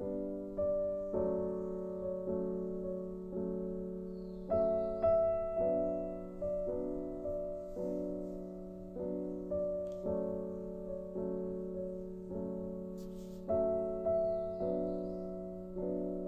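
Soft background piano music, evenly paced single notes that each ring and fade.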